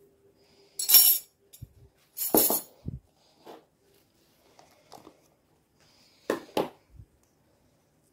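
Clinks and knocks from a metal spoon and a ceramic sugar bowl being handled and set down on a wooden floor, then a plastic jar of salt being picked up and handled. The noises come as separate short sounds, the loudest about a second in and a quick pair of knocks near the end.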